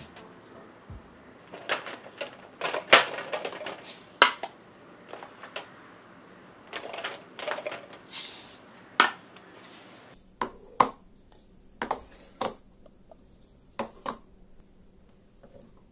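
Small hard objects being handled and set down: irregular light clicks, taps and clinks, some with a brief ring, a dozen or so spread out with quiet gaps between.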